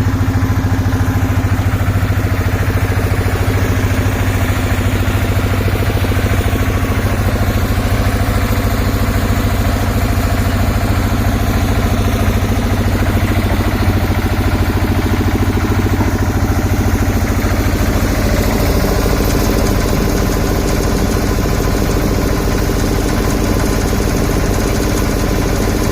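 Engine of a concrete mixer with an attached ladder lift, running steadily; the sound changes and grows brighter about eighteen seconds in.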